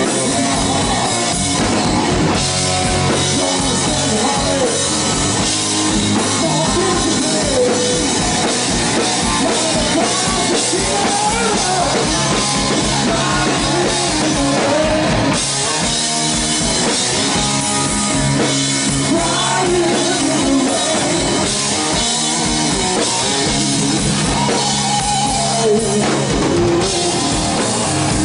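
Hard rock band playing live: electric guitar over bass and a drum kit, loud and continuous.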